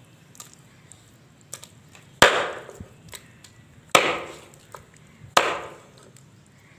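Kitchen knife chopping through raw chicken onto a thick wooden block: three sharp chops about a second and a half apart, each ringing briefly off the wood, with a few light knocks between.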